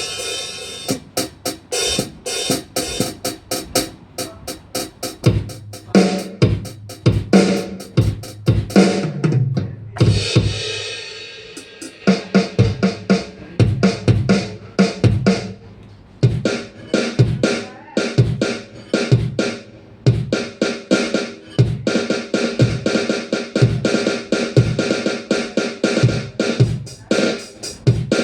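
Ddrum DDA50 electronic drum kit sounds playing a busy drum pattern of kick, snare and hi-hat hits, with steady pitched tones under the beat.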